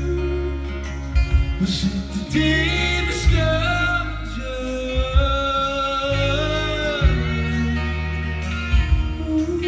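Live band playing the closing passage of a song: a held, bending melody line over steady bass, with drum hits every second or two.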